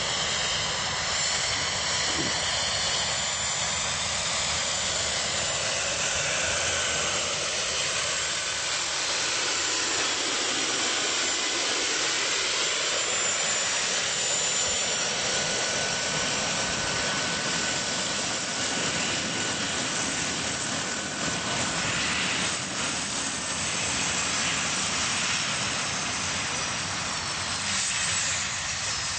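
Small model jet turbine of an RC Vario Lama scale helicopter running with a steady high whine over the noise of its spinning main rotor. Near the end the whine falls in pitch as the turbine is throttled back with the helicopter on the ground.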